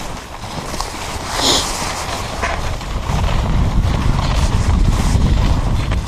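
Footsteps in boots crunching on snow at a walking pace. From about halfway through, wind rumbles on the microphone and grows louder.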